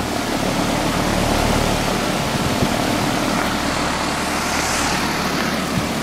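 New Payne central air-conditioner condensing unit running: the top-mounted condenser fan's steady rush of air over a low hum from the unit.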